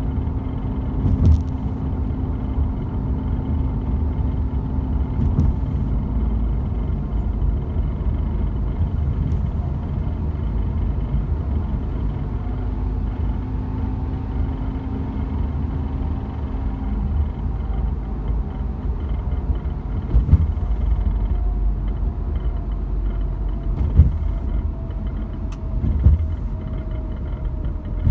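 Road and engine noise of a moving Volkswagen Golf GTI Mk7, a steady low rumble with the engine note slowly drifting lower. A few sharp knocks or rattles come through at irregular intervals, the kind of rattle the car is being checked for.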